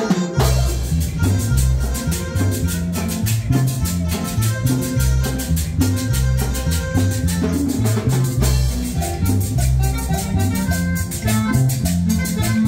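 Live band with electric guitar and keyboard playing a cumbia with a steady dance beat, kicking in suddenly just after the start.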